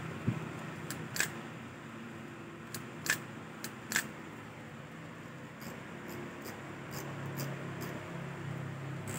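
Light clicks and taps of a Shimano Biomaster SW4000XG spinning reel being handled, then a run of faint, evenly spaced ticks, about two or three a second, in the second half. A steady low hum runs underneath.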